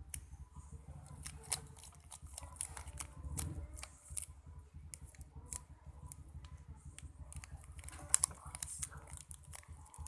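Scattered small clicks and rustles of handling, irregular and light, over a low steady hum.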